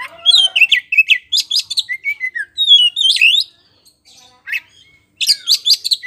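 Oriental magpie-robin, the white-bellied 'kacer poci' form, singing loud, rapid phrases of sharp whistled and chattering notes. The song breaks off about three and a half seconds in, gives a single note, then starts again with another fast run near the end.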